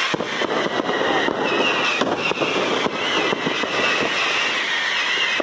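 Fireworks on a balão fogueteiro, a paper hot-air balloon carrying a firework rig, going off with dense, rapid, irregular crackling and popping.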